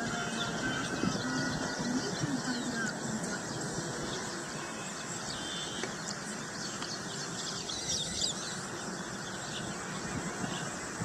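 Many birds chirping and calling at once, short high calls overlapping throughout, over a steady background rush.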